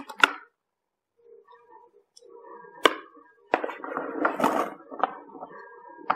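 Small toy construction vehicles clicking and clattering against a plastic toy cart as they are picked out, then knocking and rolling on a wooden board: a sharp click about three seconds in, followed by a run of clicks and scraping.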